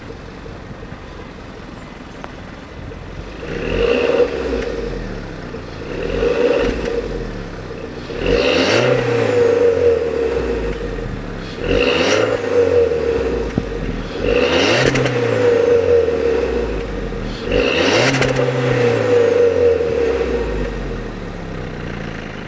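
Audi A3 1.4 TFSI turbocharged four-cylinder petrol engine heard through its stock twin-tip exhaust, idling and then revved six times. The first revs are short blips and the later ones are held longer, each rising and then falling back before it returns to idle.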